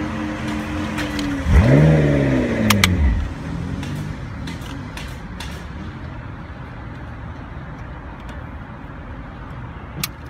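A vehicle engine revs, its pitch sweeping up and back down over about a second and a half, about a second and a half in, over a steady hum and background noise. A few light plastic clicks come from the air-vent slats being worked by hand.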